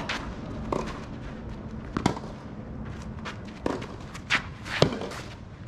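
Tennis rally: sharp racket-on-ball hits and ball bounces, several knocks a second or so apart, the loudest a little before the end, with the player's shoes moving on the court between them.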